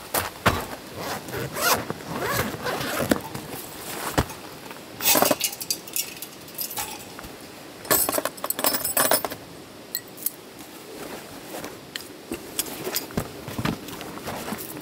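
Zipper on a soft fabric storage bag being run open and closed, in short noisy pulls about five seconds in and again from about eight to nine seconds. Footsteps crunch on gravel and the bag rustles and scrapes between the pulls.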